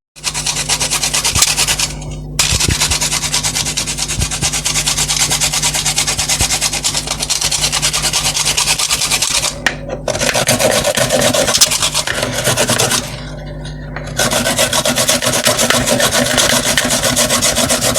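Fresh coconut meat being grated by hand on a grater: fast, steady rasping strokes, with short pauses about 2 seconds in, around the middle and about 13 seconds in.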